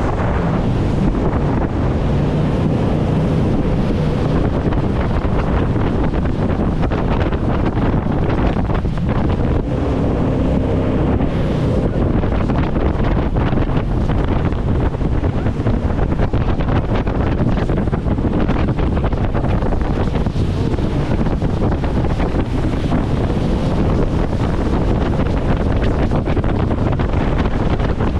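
Steady heavy wind buffeting the microphone of a speeding jet boat, over the rush of river water and the boat's engine.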